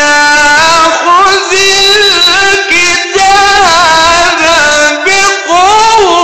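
A man's voice reciting the Quran in the melodic tajweed style, loud, holding long notes with wavering, gliding ornaments and taking short breaths between phrases.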